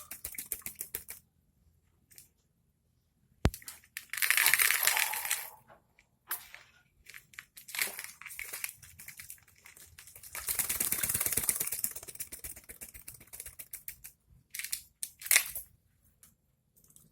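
A nuri paltem lory bathing, splashing water and fluttering its wings in several bursts of a second or two each, with short pauses between, and a single sharp click early on.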